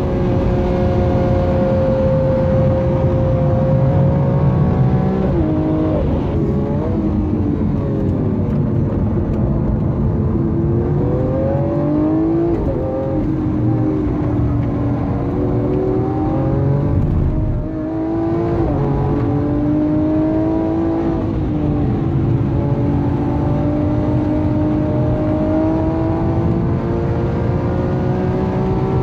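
Lamborghini Aventador S's V12 engine heard from inside the cabin at track speed, pitch climbing under acceleration with several sudden drops at gear changes. About a quarter of the way in, the pitch falls away for a few seconds and then climbs again.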